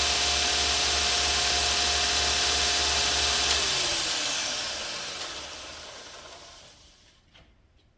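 Kalamazoo 2x48 belt grinder running with a steady motor hum and belt hiss. It is switched off about three and a half seconds in, and the pitch falls as it coasts down to a stop.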